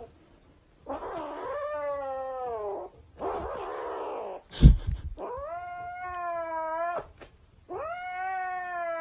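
A cat yowling in three long, drawn-out wails, with a rough, unpitched noisy stretch after the first and a sharp thump about halfway through.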